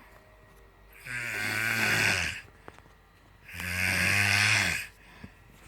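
Loud snoring: two long snores about two and a half seconds apart, each a low buzzing drone with a strong breathy hiss over it.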